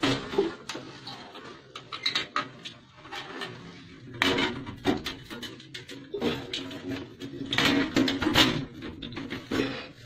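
Irregular knocks and clattering of hard objects being handled, in loose clusters, loudest about four seconds in and again near eight seconds.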